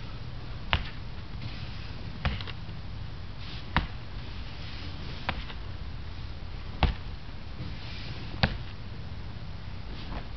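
Six sharp snaps, about one every second and a half, over a steady low rumble of wind on the microphone, with breathy hissing in between. These come from a person practising a kung fu form, hand strikes and breathing.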